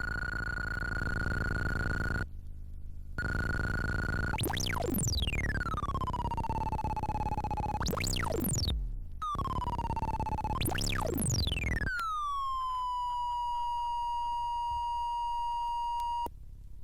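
Synthesizer tones: a steady high pure tone with a short break about two seconds in, then three swooping tones that dive from very high and settle into a held note. The last note holds steady and cuts off suddenly near the end.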